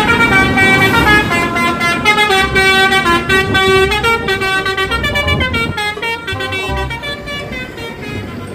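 Bus telolet horn playing a loud tune: several horn tones sound together and step from note to note, easing off slightly near the end.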